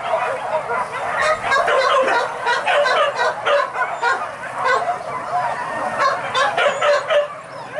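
A pack of hunting dogs yelping and baying together, many overlapping cries with no break.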